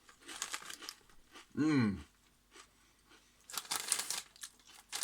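Hand-cooked potato crisps crunching as they are bitten and chewed, in two bouts, with a short vocal sound falling in pitch just before two seconds in.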